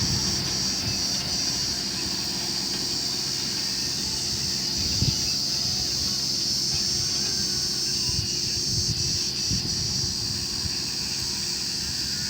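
A heavy construction machine's diesel engine running steadily, with a steady high-pitched insect drone over it and a few short knocks partway through.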